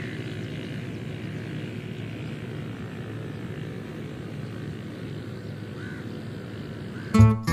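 A steady low rumble, with music starting loudly just before the end.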